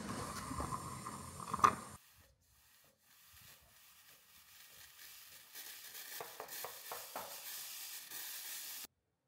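Espresso machine steam wand steaming milk in a stainless pitcher, a dense hiss with a steady whistle-like tone, for about two seconds. After a short break, the wand is purged to clear it: a hiss that builds and then cuts off suddenly near the end.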